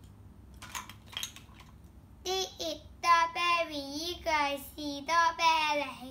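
A young girl speaking in Cantonese in a sing-song voice. Before she starts, about a second in, there are a few light clicks of plastic toy food being handled in a basket.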